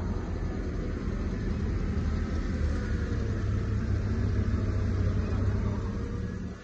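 Forklift engine running with a steady low rumble while it carries a half-cut car body.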